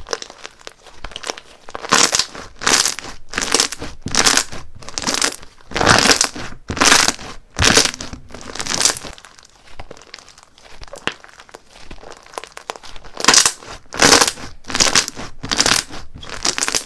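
Slime squeezed and worked by hand, making repeated crackling, crinkling bursts, with a quieter lull in the middle.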